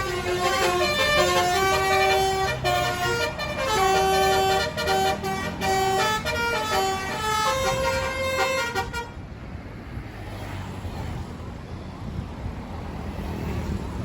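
A bus's basuri telolet musical air horn playing a quick tune of changing notes, cutting off abruptly about nine seconds in. A low engine rumble runs underneath and carries on after the horn stops.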